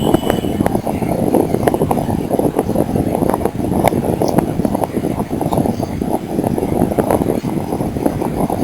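Vehicle on the move with wind on the microphone: a dense, steady low rumble broken by many small knocks and rattles.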